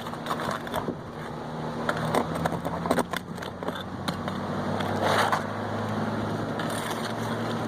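Flat bar prying up roofing nails and tearing loose damaged asphalt 3-tab shingles: scattered cracks and scrapes, with a longer tearing scrape about five seconds in. A steady low hum runs underneath.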